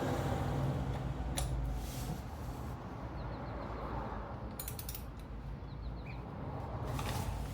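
Metal hand tools clicking and creaking while working on a motorcycle, with a few separate clicks and a quick ratchet-like run of clicks about four and a half seconds in.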